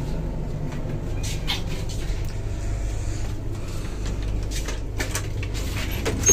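Steady low hum inside a passenger train coach, with a few light knocks and clicks scattered through it.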